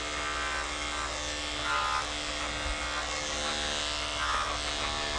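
Corded electric dog-grooming clippers running with a steady buzzing hum as they shave the short coat on an Airedale terrier's chest.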